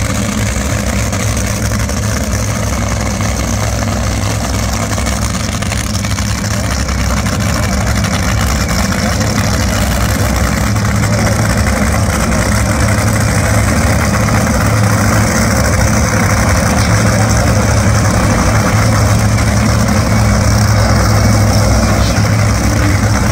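Two Top Fuel dragsters' supercharged nitromethane V8 engines idling at the starting line after their burnouts: a loud, steady, deep rumble that grows gradually louder.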